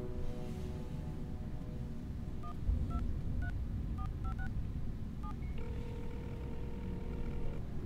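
Cell phone keypad tones: about seven quick beeps as a number is dialled, then a steady ringing tone for about two seconds as the call rings through. A low room hum runs underneath.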